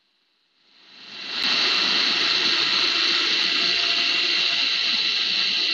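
Food processor motor running: a steady whirring with a high whine that comes up over about a second and then holds even.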